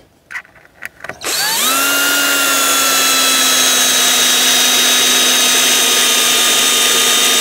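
Electric drill with a few small knocks at first, then spinning up about a second in and running steadily at full speed, its pitch sagging slightly under load, working into wooden pallet boards.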